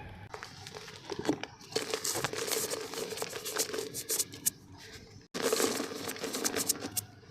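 Dry black mud dirt being crumbled in a clay pot: a dense run of irregular crunching and crackling. It cuts out for an instant just after five seconds.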